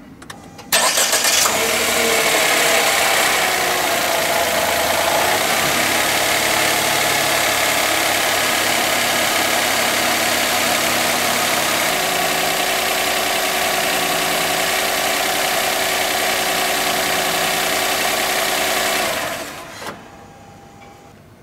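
Nissan Dayz Roox (B21A) 660 cc three-cylinder kei-car engine started about a second in, idling steadily, then switched off near the end. It is run at idle to circulate freshly added oil through the engine partway through an oil and filter change.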